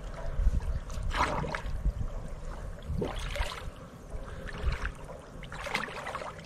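Water sloshing and splashing against the side of a wooden country boat as a swimmer moves beside it, in a few short splashes about two seconds apart.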